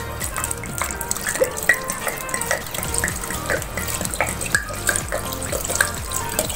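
Water poured in a steady stream into a pressure cooker of hot chicken gravy, splashing and gurgling. This is the water, about two cups, added to the biryani masala to boil before the basmati rice goes in.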